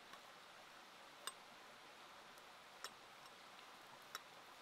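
Three sharp ticks, about a second and a half apart, over a faint steady hiss.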